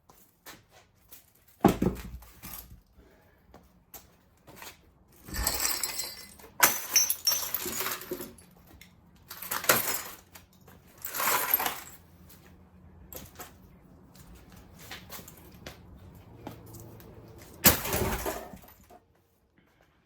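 Broken glass and debris from a smashed Macintosh 512K clattering and crunching as it is cleared up. About six sharp crashes with a bright glassy rattle are spread through, with smaller clinks between them.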